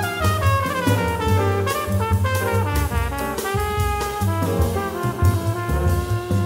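Small-group jazz recording: a horn solos in quick, often descending runs of notes over drum kit with cymbals and a bass line.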